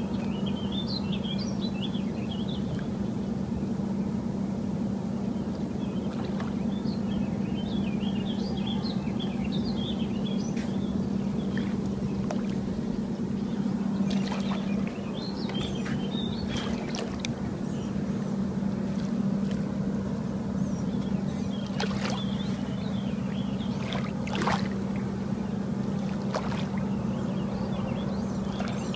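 A steady low motor hum that holds one pitch throughout, with scattered high chirps over it and a few sharp clicks near the end.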